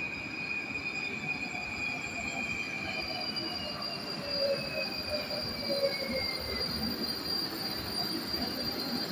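Moskva-2020 metro train pulling into the platform and braking. A high whine glides down in pitch over a few seconds as it slows, over steady rolling noise from the wheels and track.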